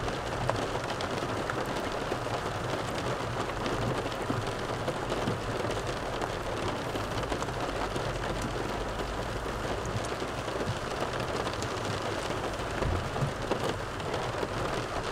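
Steady, even hiss with a low hum underneath, heard inside a parked car's cabin.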